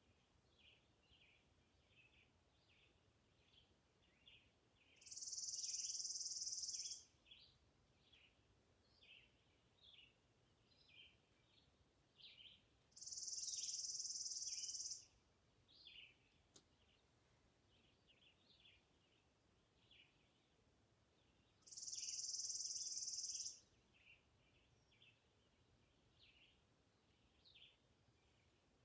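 Forest birds chirping softly in short, scattered high notes, and three times a much louder, even, high trill about two seconds long, repeating every eight or nine seconds.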